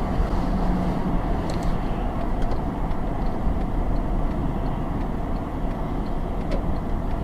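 Steady engine and tyre road noise of a moving car, heard inside the cabin, with faint light ticks repeating about every two-thirds of a second.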